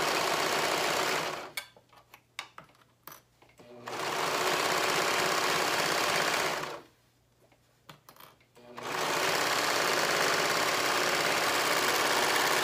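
Brother overlock serger stitching at speed, standing on a vibration-damping machine mat on a wooden table. It runs in three spells: it stops about a second and a half in, starts again around four seconds, stops again near seven seconds, and starts once more about nine seconds in. Light clicks of handling sound in the pauses.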